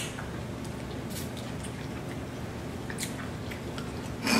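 Quiet wet eating sounds from a seafood boil being picked at and chewed, over a steady low hum, with a few soft clicks and a sharper smack near the end.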